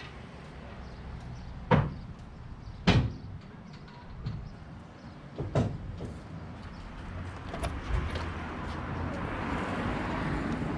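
Three sharp clunks at the 1958 Chevrolet Impala's door, the first two about a second apart and the third a few seconds later, then a steady engine noise that builds over the last few seconds as the car is started and left running.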